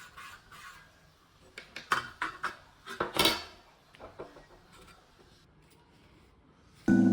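Light clinks and knocks of hard objects being picked up and set down, clustered about two to three and a half seconds in. A loud steady pitched hum starts just before the end.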